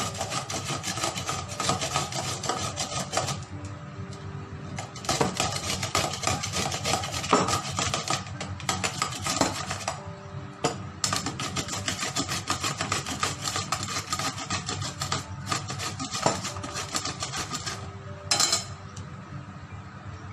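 Raw pumpkin being grated on a flat stainless-steel hand grater: rapid, repeated rasping strokes of the flesh scraping over the metal teeth, with a few short pauses between bouts.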